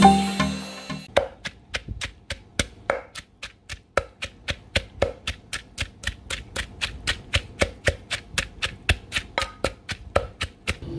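A knife chopping on a cutting board: rapid, evenly spaced knocks, about four a second, starting about a second in as a short music jingle fades out.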